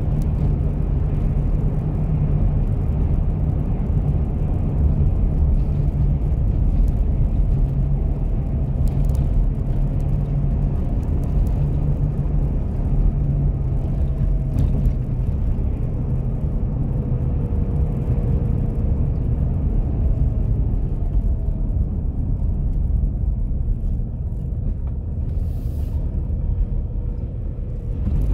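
Car engine and tyre noise heard from inside the cabin while driving, a steady low rumble. It eases off near the end as the car slows.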